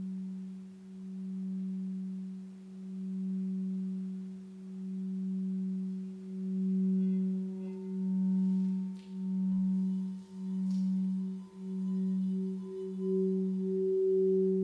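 Crystal singing bowls ringing a sustained low tone with a fainter tone an octave above, the sound swelling and fading in slow pulses that come quicker as it goes on. A higher tone joins about halfway through.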